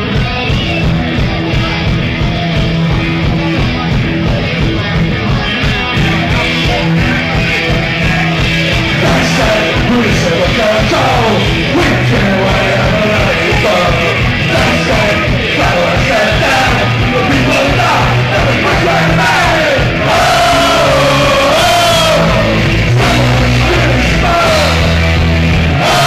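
Live punk rock band playing loud: electric guitars, bass and drums, with shouted lead vocals coming in about ten seconds in and getting stronger near the end.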